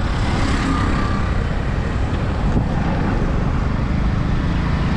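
Wind rushing over the microphone of a camera on a moving motorcycle, with the motorcycle's engine and road noise running underneath as a steady rumble.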